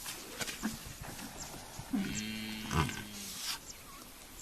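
A calf bawling: one drawn-out call about two seconds in, lasting about a second, with faint rustling and clicks around it.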